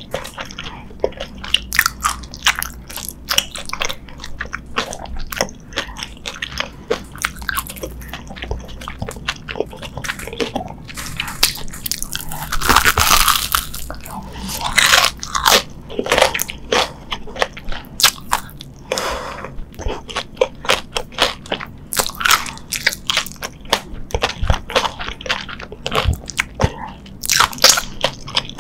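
Close-miked biting and chewing of crunchy deep-fried Korean corn dogs, the one in hand coated in crushed ramen noodles. Many sharp crunches and crackles throughout, with a few denser spells of crunching.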